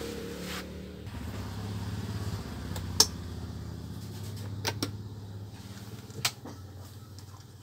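12-inch Miyako desk fan's motor and blades running with a low hum that slowly dies away, the fan winding down. A few sharp clicks come through it, the loudest about three seconds in.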